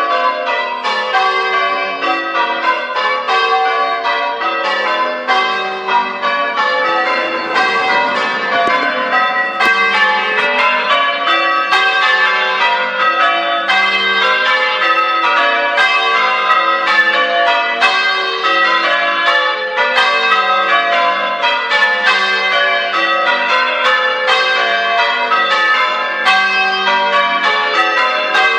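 Church tower bells being rung in change ringing: a steady, unbroken stream of overlapping bell strikes, several a second, each one ringing on.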